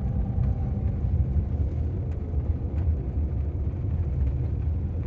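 Road and tyre rumble heard inside the cabin of a moving Waymo driverless car, with a faint steady tone that fades out about a second in and a few light ticks.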